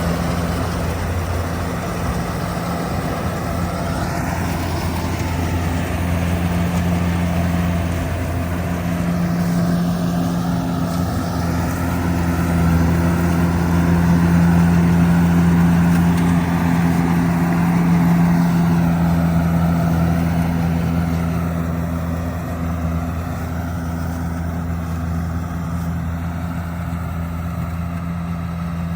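Kubota DC70G Plus rice combine harvester running, its diesel engine droning steadily under the noise of the machine, slightly louder in the middle.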